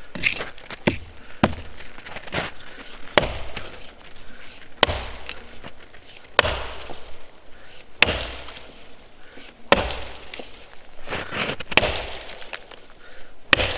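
Vintage Plumb axe, a 2¼-pound head on a 24-inch boy's axe handle, chopping into a fallen dead log. The sharp chops come in a steady series, roughly one every one and a half to two seconds.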